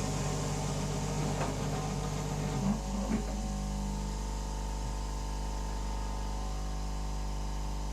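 Hot air rework station blowing a steady hiss over an electrical hum, with a few light handling knocks in the first three seconds.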